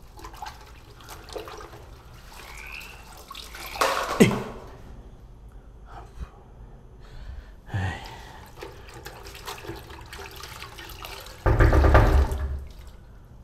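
Hands sloshing and splashing water in a plastic basin, with louder splashes about four seconds in and a longer, heavier one near the end.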